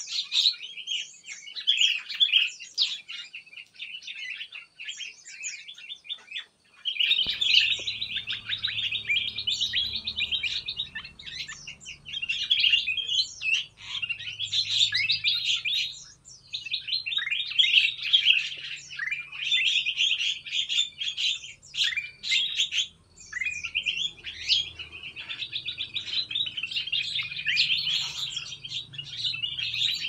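Mixed small songbirds in an aviary chirping and twittering together in a dense chorus of rapid high calls. A low steady hum comes in about a quarter of the way through.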